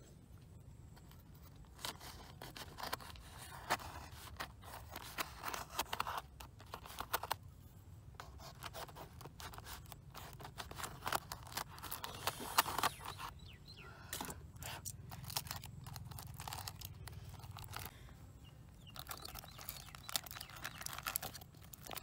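Aluminium foil crinkling and tearing as a knife slits a foil packet open and hands peel the foil back, in irregular bursts of crackling that start about two seconds in.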